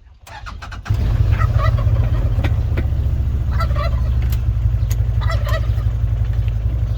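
A vehicle engine starts about a second in after a few clicks and runs steadily, while a turkey gobbles three times over it.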